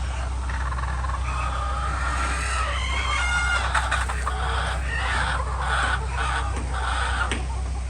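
A flock of chickens clucking and calling over one another, with one longer drawn-out call about two to three seconds in, over a steady low hum.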